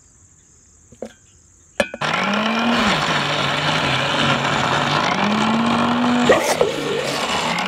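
Electric mixer grinder (mixie) grinding a wet spice paste. After a couple of clicks, the motor is switched on about two seconds in and runs loudly, its hum sagging in pitch as it takes the load and rising again later. It stops and restarts briefly around six seconds in.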